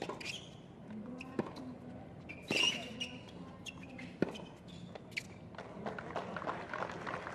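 Tennis rally on a hard court: sharp racket hits on the ball and bounces, a second or more apart, the loudest about two and a half seconds in. Crowd noise rises near the end as the point finishes.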